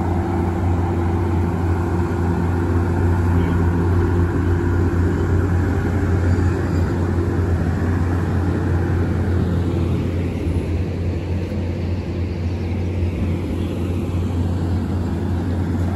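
Metro-North diesel push-pull passenger train moving along a station platform: a steady low engine hum under the rumble of the coaches rolling by. It eases off a little after about ten seconds.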